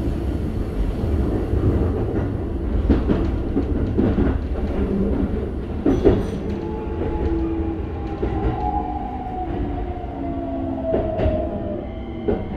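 Keikyu 1000 series electric train heard from inside the car: a steady rumble of wheels on rail, broken by several sharp clacks over rail joints. From about halfway, the Toyo IGBT-VVVF inverter's whine comes in and slowly falls in pitch as the train slows.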